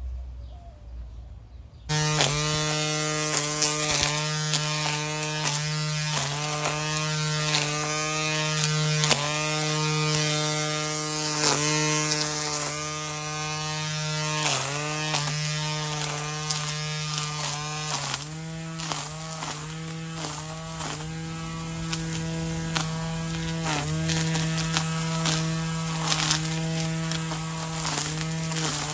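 Hart 40V cordless string trimmer's electric motor switching on about two seconds in and running with a steady hum, its pitch dipping briefly again and again as the spinning line bites into weeds and grass. Frequent ticks and slaps of the line striking stems run through it.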